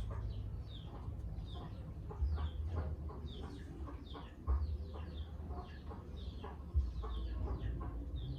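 Chicks peeping: short, falling high cheeps repeated about twice a second, over a low rumble with a few dull thumps.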